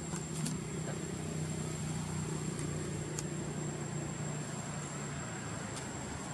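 Steady low hum of a motor vehicle's engine running, with a thin, steady high-pitched tone above it and a few faint clicks.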